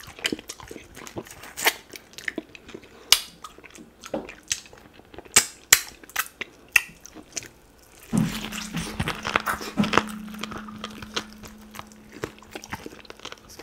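Close-miked mouth eating sounds: wet smacking, sucking and biting clicks as duck meat coated in slimy ogbono soup is eaten by hand and soup is licked off the fingers. About eight seconds in it gets louder, with a steady low hum held for about four seconds.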